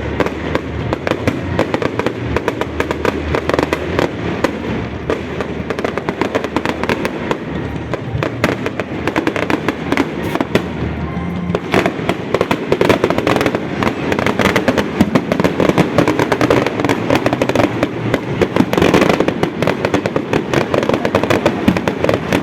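Fireworks display: a dense, continuous barrage of bangs and crackles, growing busier and louder from about halfway through.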